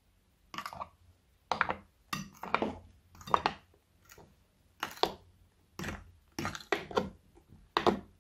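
Thick white foam being stirred and folded in a glass bowl with a metal stirrer: about a dozen short, wet squishing strokes at irregular intervals.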